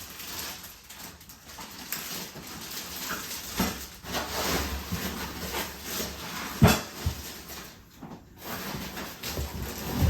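Rustling of packaging and cardboard being handled, with a few sharp knocks as chair parts are moved.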